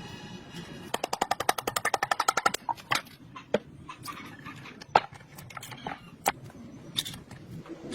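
Hand tools working on metal parts: a fast run of clicks, about ten a second for a second and a half, then scattered single sharp knocks and taps.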